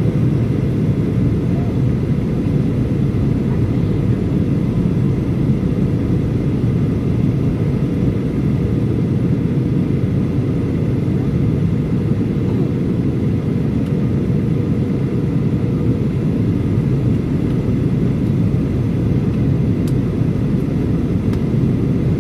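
Steady low rumble of a Boeing 737-800's cabin noise in flight during the descent to land.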